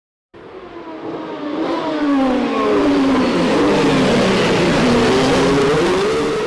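Vehicle engine revving, its pitch sliding down and then climbing again as it grows louder.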